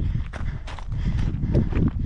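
Hurried footsteps crunching on loose rock rubble, about three steps a second, over a steady low rumble.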